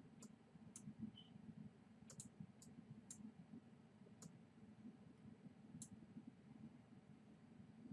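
Faint, scattered computer mouse clicks, about eight of them with two close together a little after two seconds in, over a low steady room hum.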